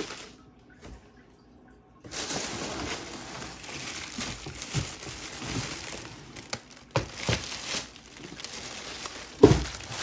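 Plastic packaging bag crinkling and cardboard box rustling as a boxed item is handled and lifted out, with a few short knocks, the loudest near the end. The first two seconds are nearly silent.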